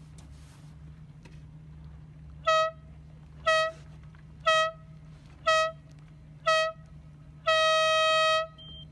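Race committee horn sounding five short blasts about a second apart, then one long blast lasting about a second: the pattern of a dinghy race start countdown ending on the start signal.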